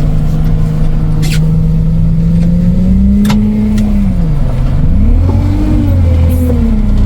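All-terrain vehicle's engine running under load, holding steady and then revving up and down twice as it works over rough ground, with a few sharp knocks.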